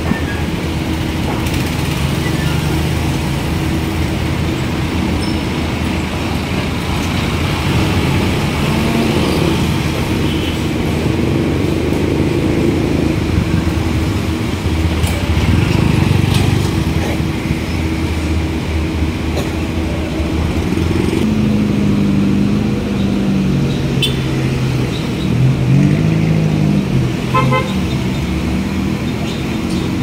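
Street traffic: the engines of passing vehicles run steadily throughout, swelling as a dump truck goes by close about halfway through. Engine tones shift up and down in pitch in the second half.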